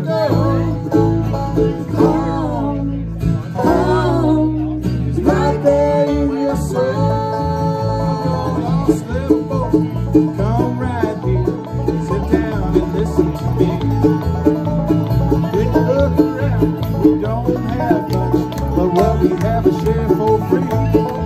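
Live bluegrass band playing an original song on banjo, mandolin, acoustic guitar and electric bass, with the banjo picking quick runs of notes through most of it.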